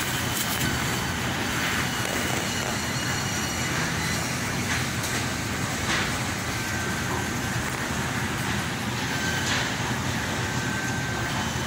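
Steady supermarket background noise: a constant rushing hum with a couple of faint steady tones in it, and a few soft knocks.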